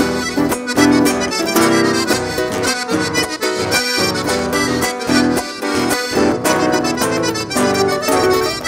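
Piano accordion playing a lively melody over nylon-string acoustic guitars: an instrumental break in a gaúcho regional song, with no singing.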